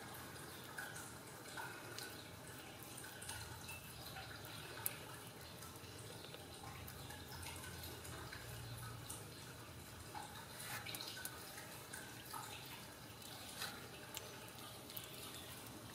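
Faint, scattered small wet-sounding clicks and soft rustling from a hand stroking and handling a young kitten. One sharper click comes about five seconds in.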